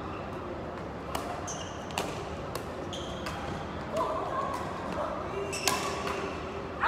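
Badminton rally: rackets striking the shuttlecock with several sharp hits at uneven intervals, with short squeaks of court shoes on the floor in between.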